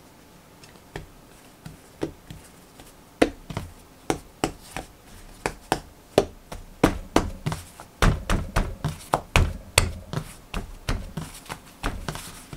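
Hands patting and pressing a ball of bread dough flat on a floured countertop: a run of soft slaps and taps, sparse at first and coming faster and heavier from about eight seconds in.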